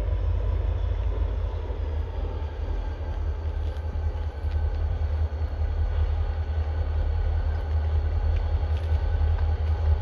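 Diesel locomotives of an approaching freight train, heard at a distance as a steady low rumble that grows slightly louder as the train slowly closes in.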